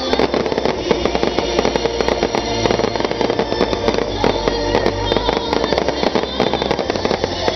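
Fireworks bursting and crackling in rapid clusters of sharp cracks, with music playing underneath.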